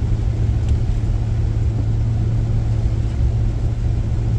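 Steady road and engine rumble inside a moving car's cabin, with a constant low hum.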